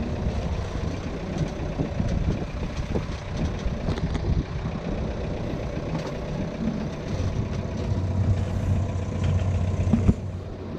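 A boat's engine running steadily while under way: a low, even hum with rumbling noise over it.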